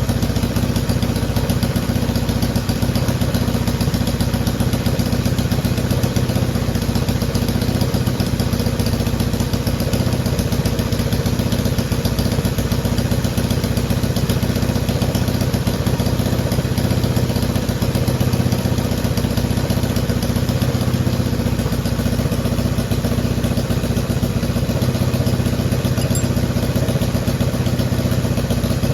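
Honda CJ360's air-cooled parallel-twin engine running steadily at an even speed.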